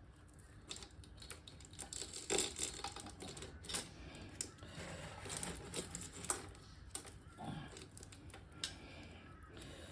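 Light, irregular metallic clicks and rattles of a new cam timing chain's links as it is fed into a 2002 Yamaha YZ250F's engine and over its sprockets.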